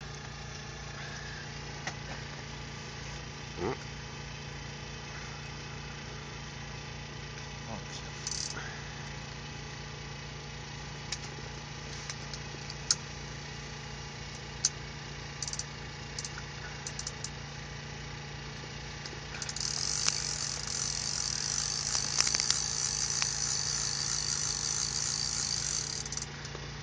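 A small engine or motor humming steadily, with scattered light clicks. About two-thirds of the way in, a high hiss joins it for roughly seven seconds, then stops.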